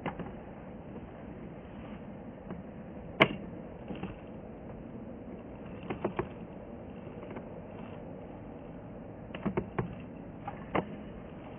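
Steady distant hiss of an Airbus A350-941's Rolls-Royce Trent XWB engines at taxi power, broken by a few sharp clicks, the loudest about three seconds in and a small cluster near the end.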